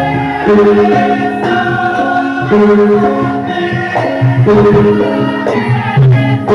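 Traditional Javanese music accompanying a topeng mask dance, with singing over held, pitched instrumental notes.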